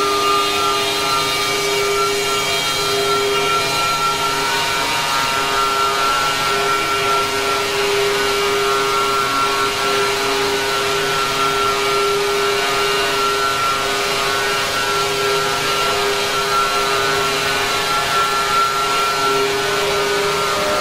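Sustained drone of many steady held pitches layered into a dense cluster over a hiss, changing very little throughout.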